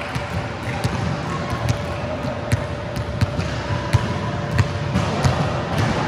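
A ball bouncing repeatedly on a hard indoor court floor, about one bounce every 0.7 s.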